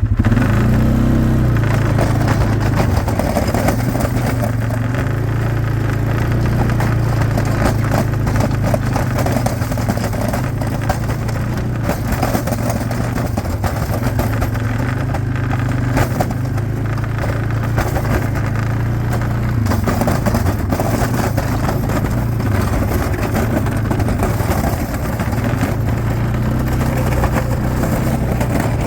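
Engine of a snow-plowing vehicle running under load as it pushes fresh snow, coming up in speed at the start and then running steadily with slight rises and falls.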